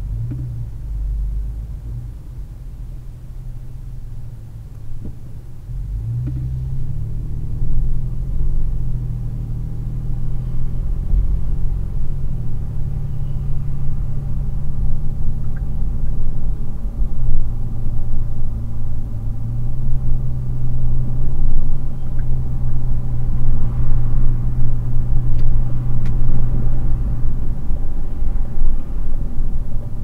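Car engine and road noise as the car pulls away and picks up speed: a low engine hum that steps up and down in pitch several times, with the overall noise growing steadily louder.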